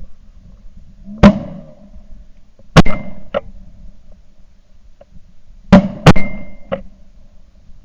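Shotgun shots at incoming ducks: four loud shots, one about a second in, a second about a second and a half later, then a quick pair close together about six seconds in.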